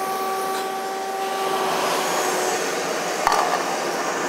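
Retrotec duct-testing fan running with a steady whine over a rush of air. The whine fades out about two seconds in, leaving the airflow noise, and a single click about three seconds in as the flow ring on the fan inlet is changed back to the mid-range.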